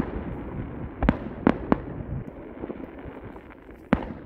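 Aerial fireworks going off: sharp bangs at uneven intervals, one at the start, three within the next two seconds and one near the end, over a steady background rumble of the display.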